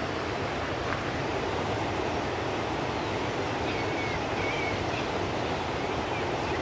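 Fast-flowing river current rushing steadily past the bank. A few faint, short, high bird calls come in about halfway through and again near the end.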